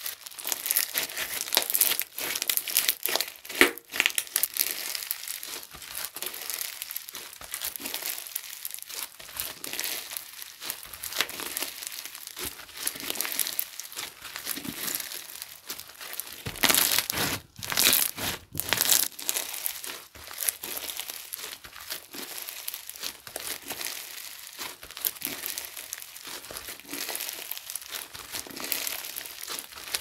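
Clear slime mixed with iridescent glitter pieces being squeezed, folded and stretched by hand, giving a continuous crinkly crackle of fine pops and squelches. It gets louder for about two seconds a little past the middle.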